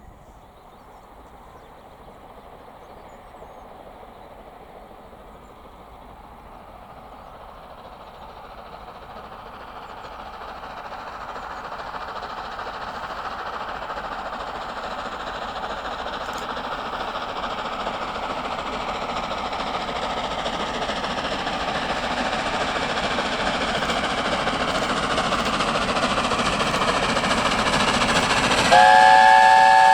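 Steam train approaching, its running noise growing steadily louder. Just before the end its chime whistle starts blowing, several notes at once and held.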